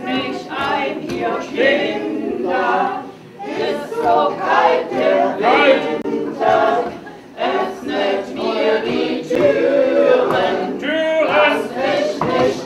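Several voices singing a song together, mostly unaccompanied, in phrases with short breaks.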